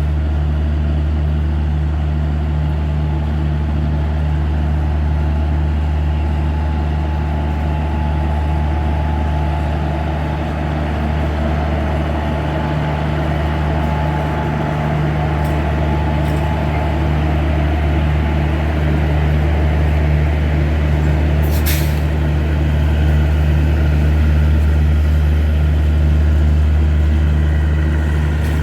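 Steady low hum of a stationary train's machinery, level and unbroken, with a single short click about three-quarters of the way through.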